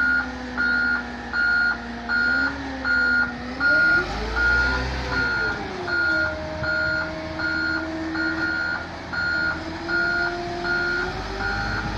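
Bulldozer's backup alarm beeping evenly, about two beeps a second, over its diesel engine, which revs up about four seconds in and then holds a higher note.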